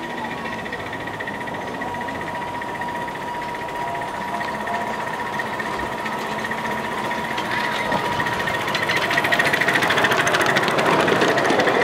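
Ride-on miniature steam locomotive and its passenger cars running on small-gauge track, a rapid, even rhythmic clatter that grows louder as the train approaches and passes close by near the end.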